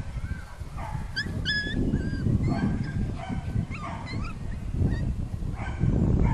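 Border Collie puppies yipping and whimpering in many short, high cries that bend in pitch, over a low steady rumble.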